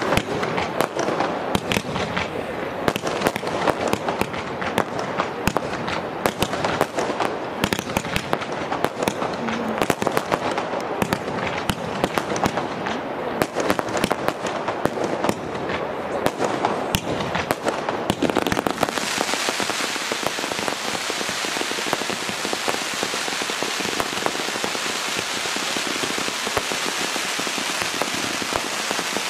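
Fireworks display: a rapid, irregular run of shell bursts and pops, then about two-thirds of the way through it changes to a dense, even crackle of many crackling stars going off at once.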